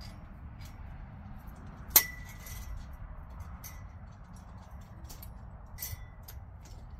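Metal tent-frame tubes clinking and tapping against each other as they are fitted together, with one loud ringing clank about two seconds in and a softer ringing clink near the six-second mark.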